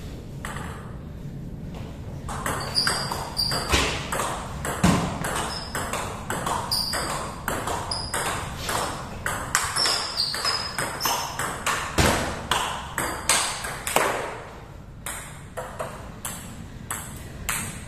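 Table tennis rally: a celluloid-type ball clicking in quick alternation off rubber-faced bats and the table top, several hits a second. The rally ends about fourteen seconds in, followed by a few softer ticks.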